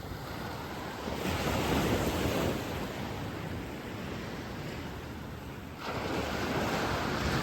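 Ocean surf breaking on the beach, a wash of noise that swells as a wave breaks about a second in and again near the end, with wind buffeting the microphone.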